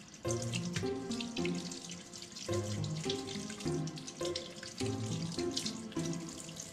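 Water running and splashing in a stainless steel kitchen sink as small horse mackerel are headed and gutted by hand, over background music.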